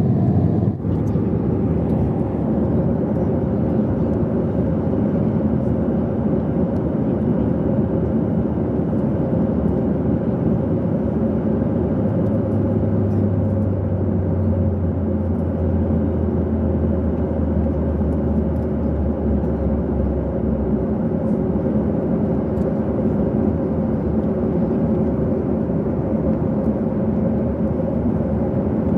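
Aircraft engine noise: a steady, even drone with a low hum and a fixed tone held throughout, the low hum swelling for several seconds in the middle.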